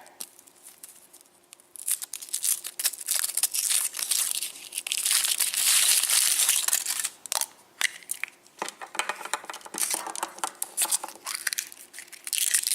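Foil wrapper of a Kinder Surprise chocolate egg being crinkled and torn off by hand, in two spells of dense crackling after a quiet start.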